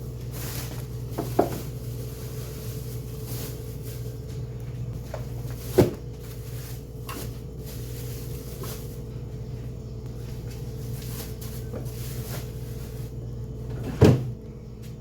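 Refrigerator door, shelves and drawers knocking and clicking as groceries are put away, with three louder knocks about a second and a half in, near six seconds and near the end, over a steady low hum.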